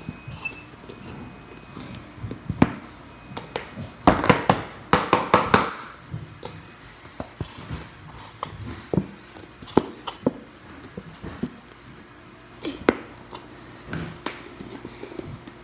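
Scattered clicks, taps and knocks of containers and supplies being handled on a table, busiest about four to six seconds in.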